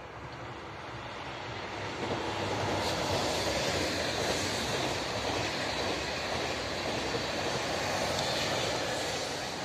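Double-deck TGV high-speed train passing, a rushing rolling noise of wheels on rail that swells about two seconds in, holds steady as the carriages go by, and begins to fade near the end.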